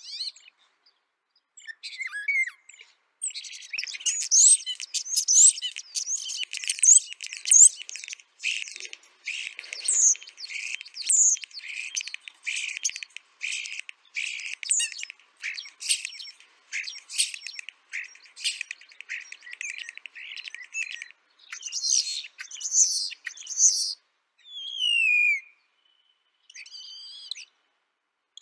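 Starling song: a long, dense run of rapid clicks, rattles and whistled notes, then a single falling whistle near the end.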